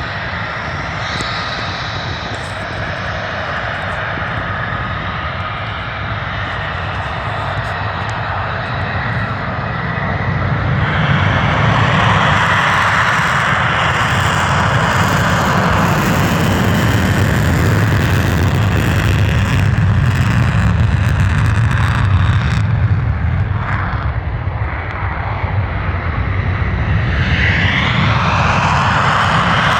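F-35 fighter jets' F135 turbofan engines taking off, a loud continuous jet noise with a deep rumble. It swells louder about a third of the way in, and near the end a whine rises in pitch as it grows again.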